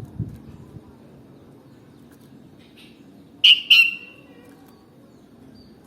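Sooty-headed bulbul giving two short, sharp calls in quick succession, after a low thump near the start.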